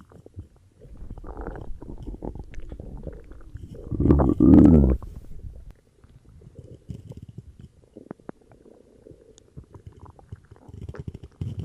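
Human stomach gurgling and rumbling with cola in it, with one loud, pitched growl that slides in pitch about four seconds in, then softer irregular gurgles.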